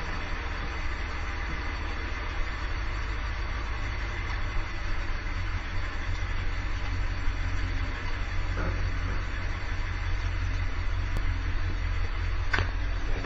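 1978 Dodge Tradesman 4x4 van's engine idling steadily with the hood open, a constant low drone.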